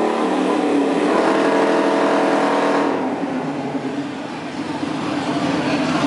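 Riding lawn mower engine running steadily under load as it pulls a weight sled. About three seconds in its steady note gives way to a rougher, quieter sound, which then grows louder again toward the end.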